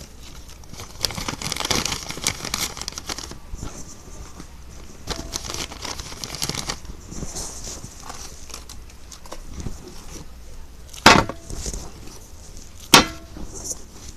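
A wrapper being torn open and crinkled in bursts of rustling, then two sharp clicks near the end.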